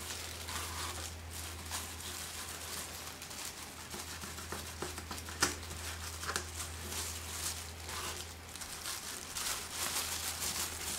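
Clear plastic disposable gloves crinkling and rustling as a gloved fingertip rubs metallic wax paint onto a hard painted base, with scattered light taps and a sharper tap about five seconds in, over a low steady hum.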